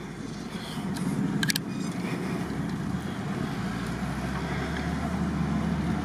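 SUV engine running steadily at low speed on a rough off-road track, its drone growing stronger and deeper about two seconds in. A brief high chirp sounds about a second and a half in.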